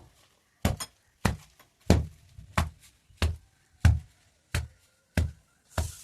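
A steady series of heavy striking blows, about three every two seconds, each a sharp knock with a deep thud under it, from work on a hand earth rammer.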